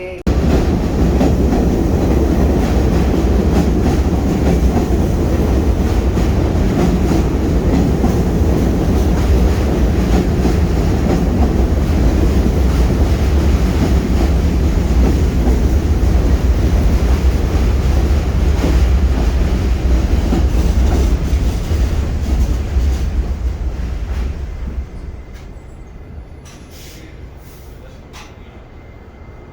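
New York City subway train running on the tracks: a loud, steady low rumble with wheel clatter. It starts abruptly and drops off to a much quieter hum about three-quarters of the way through, with a few faint clicks after.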